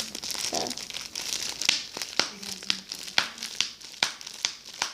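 Ziploc plastic bag packaging crinkling as it is handled and squeezed, with many sharp crackles throughout.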